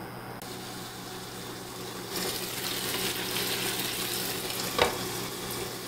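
Bacon frying in a pan, an even sizzle that swells about two seconds in, with one sharp click near the end.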